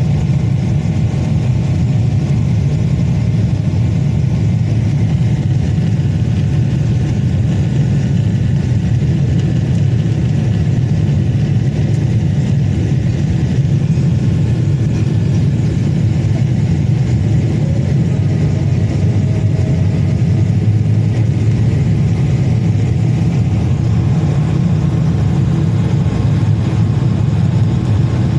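Jet airliner cabin noise: the steady roar of the engines and the airflow past the fuselage, heard from a window seat, deep and even, with faint steady tones above it.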